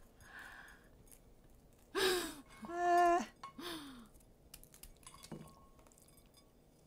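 A few short wordless vocal sounds and laughter, one of them a held hum, then faint clicks of small paring knives cutting and peeling broccoli stalks.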